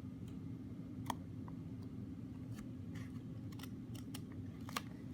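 Small sharp clicks and ticks of a precision magnetic screwdriver working tiny screws into an iPod's metal shield, irregular, with the two loudest about a second in and near the end, over a steady low hum.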